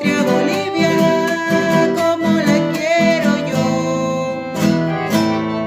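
Background music: an acoustic guitar song with a singing voice in the first half, strummed and plucked chords carrying on after the voice stops.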